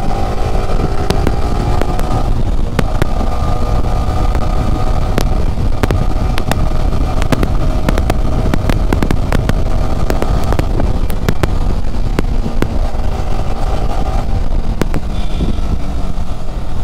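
Yamaha sport motorcycle running at road speed, its engine hum wavering under heavy wind rumble on the microphone, with many short sharp clicks scattered through.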